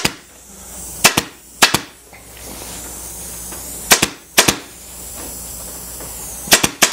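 Pneumatic upholstery staple gun firing staples through fabric into a wooden seat board: about seven sharp shots, mostly in quick pairs with pauses between as the fabric is stretched.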